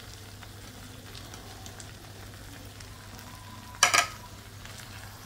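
Chilli sambal sizzling gently in a steel wok on the heat, over a steady low hum. About four seconds in comes one short, loud, sharp clatter.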